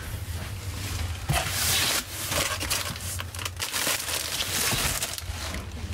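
Rummaging through clothes in a cardboard storage bin, with plastic bags crinkling and rustling; the rustling is loudest about a second and a half in and again around four to five seconds in.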